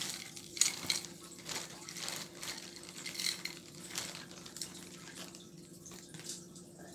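A marble fidget toy being handled: scattered soft clicks and light rustling as the marble is rolled about, thinning out after about four seconds.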